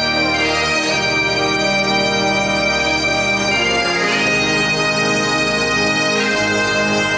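Bagpipes playing a slow melody of long held notes over a steady drone.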